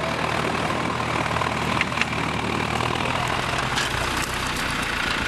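Tractor engine idling steadily, with a couple of sharp clicks about two seconds in.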